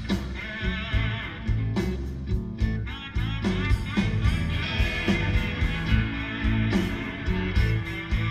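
Live rock band playing, heard on an audience tape: electric guitars over bass and a steady drum beat.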